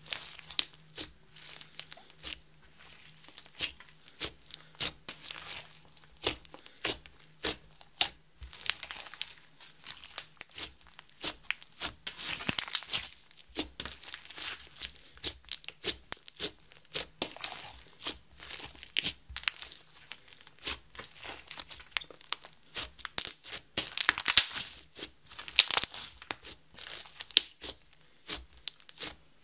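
Sticky clear slime mixed with glitter, makeup and small foam beads being kneaded and squeezed by hand: a dense run of wet crackles and small pops as it is folded and pressed, with two louder stretches of crackling, around the middle and later on.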